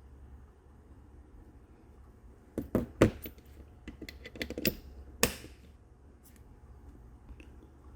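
Alarm padlock being handled: an irregular run of sharp clicks and knocks lasting about three seconds, a few of them much louder than the rest.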